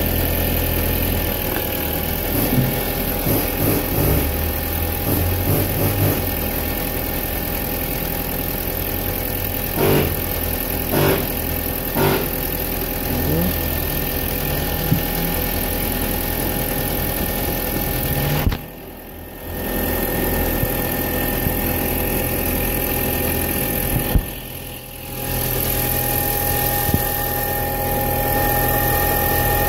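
A 2000 VW Beetle's 1.8-litre turbocharged four-cylinder engine idling steadily, warming up after a coolant refill. The sound drops away briefly twice, in the second half.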